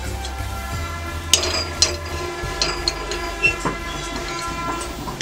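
A steady, held pitched tone with many overtones that runs unchanged, with a few sharp clicks over it. It changes abruptly at the end.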